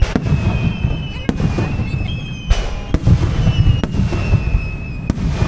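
Fireworks display: aerial shells bursting with sharp bangs, about six in a few seconds. Thin whistles slide slowly down in pitch between the bangs.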